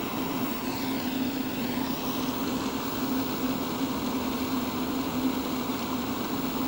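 A steady, low engine-like drone over a constant hiss, with no break or change.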